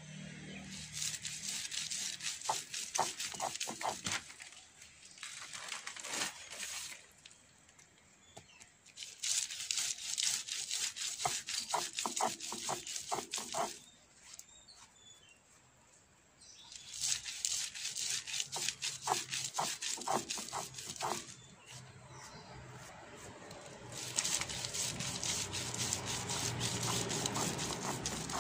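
Stone roller grinding split red lentils on a flat stone slab: crunching and crackling as the lentils are crushed, in four bouts of a few seconds each with short pauses between them while the lentils are swept back together.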